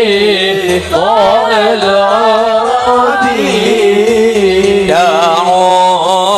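Arabic sholawat singing: a voice drawing out long, wavering, ornamented notes between sung lines.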